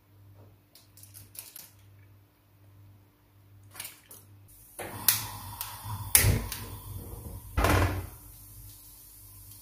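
Light taps as cherry tomatoes are set onto a salad in a bowl, then, about halfway, several loud clanks and knocks of a non-stick frying pan being handled and set on a gas stove's metal grate.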